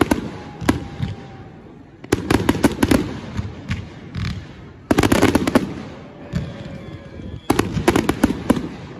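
Fireworks display: aerial shells bursting in volleys of rapid sharp bangs, a new volley about every two to three seconds, with quieter rumbling between.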